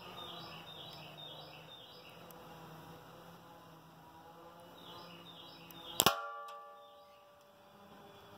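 One shot from a Dan Wesson .177 CO2 pellet revolver about six seconds in: a sharp crack followed by a brief metallic ring. Small birds chirp in short repeated runs before the shot.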